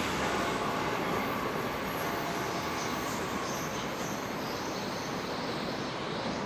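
Electric passenger train rolling along the track after passing by, a steady rolling noise that slowly fades, with faint high wheel squeal now and then.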